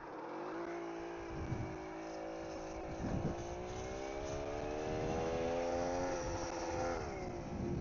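Engine of a 1951 BSA motorcycle special pulling on a ride, its pitch climbing slowly for about six seconds as it gathers speed, then dropping as it eases off near the end. A few short low thumps come through, about one and a half and three seconds in.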